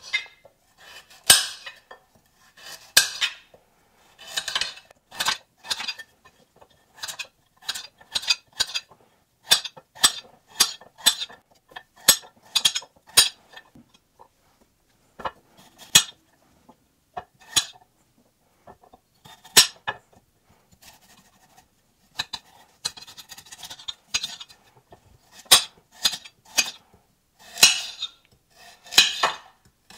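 Kitchen knife chopping carrots into chunks on a hard board: irregular sharp knocks of the blade hitting the board, sometimes in quick runs and sometimes with pauses, and a few brief scraping sounds.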